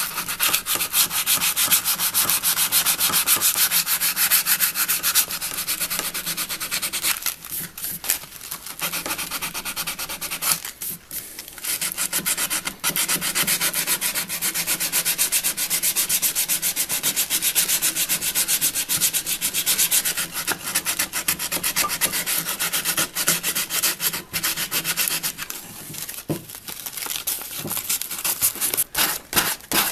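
Sandpaper rubbed back and forth in quick, repeated strokes over the wooden tote of an old hand saw, scrubbing off spots of old paint. The strokes stop briefly twice about a third of the way in.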